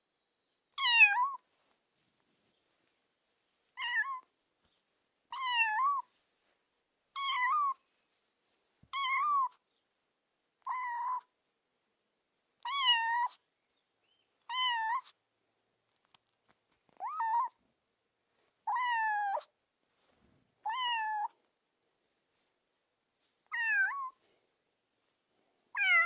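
A kitten meowing about a dozen times, each meow short and high with a rise and fall in pitch, spaced a second or two apart with silence between.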